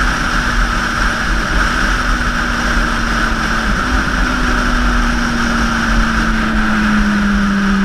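Motorcycle engine running loud and steady, its pitch holding and then sinking slightly near the end.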